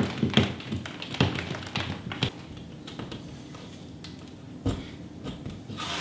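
Quick light clicks and taps of ceramic wall tiles and plastic tile spacers being handled and pressed into place, clustered in the first two seconds, with a single dull thump near five seconds in and a short rustle at the end.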